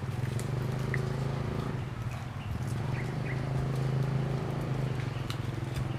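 A steady low engine hum, like a motor vehicle running, with a few faint short chirps and clicks over it.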